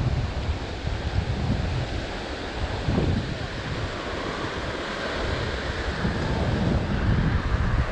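Wind buffeting the microphone in gusts over the steady wash of surf breaking on the beach.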